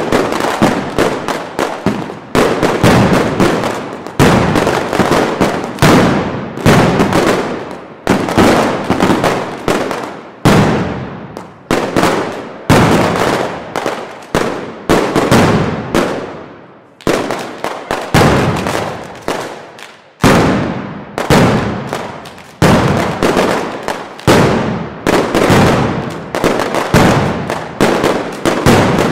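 Mascletà firecrackers (masclets) going off in a dense, rapid barrage of loud bangs that run together. The bangs come in clusters that each hit suddenly and die away, about one a second, with no pause.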